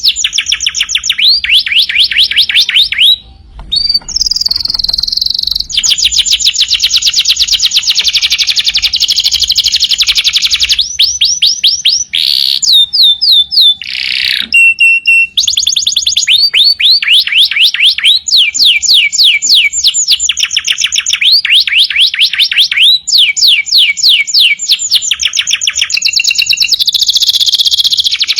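Domestic canary in full, non-stop song: long runs of very fast trilled notes, each phrase a different trill, switching every second or two, with a brief pause about three seconds in.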